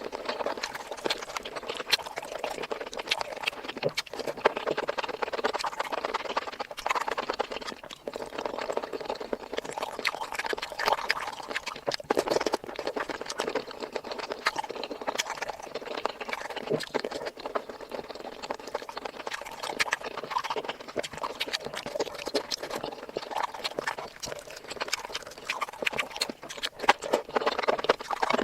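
Close-miked ASMR eating sounds: steady chewing and mouth smacking, dense with quick wet clicks.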